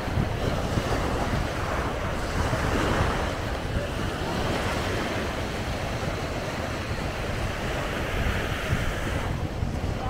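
Small waves breaking and washing up on a sandy shore, with wind buffeting the microphone in a steady low rumble.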